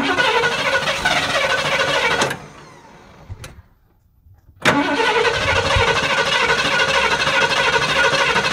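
Starter cranking the Ford 460 big-block V8 in two bursts, about two seconds and then about four seconds, with a quiet pause between. This is a test for ignition on a squirt of brake cleaner used as starting fluid in the carburetor.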